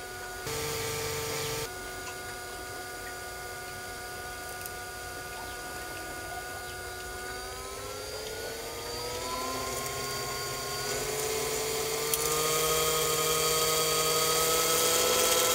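Small electric motor driving the fan of a miniature rice cleaning machine through a belt: a steady whine that rises in pitch about halfway through and again near the end as the motor speeds up.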